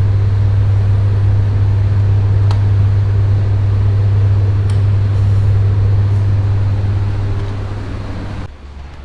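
Electrical hum from a power transformer or switchgear: a loud steady low drone at twice the 50 Hz mains frequency with an even rushing noise over it. It cuts off abruptly near the end.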